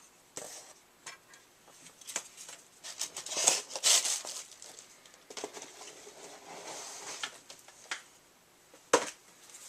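Handling of a die-cast collectible car and its card packaging: scattered clicks and rustles, with a louder cluster of rustling about three and a half seconds in and a sharp click near the end.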